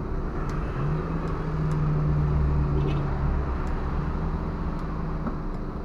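Air being pumped into a scooter tyre from an inflator hose: a steady machine hum starts about a second in, drops out briefly past the three-second mark and comes back weaker, over a steady hiss.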